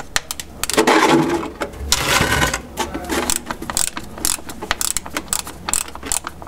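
Ratchet wrench clicking in quick runs as its handle is swung back and forth, unscrewing an automatic transmission's drain plug. Two louder scraping stretches come about one and two seconds in.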